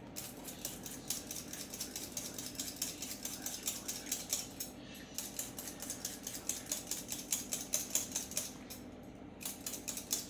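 Hand-held vegetable peeler scraping the skin off a raw potato in quick, rhythmic strokes, about five a second, with two short pauses, about four and a half and nine seconds in.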